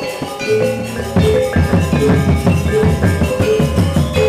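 Balinese gamelan gong ensemble playing: bronze metallophones ringing in interlocking patterns over the two-headed kendang drum and small kettle gongs. About a second in the playing turns denser and louder, with a fast steady drum pulse.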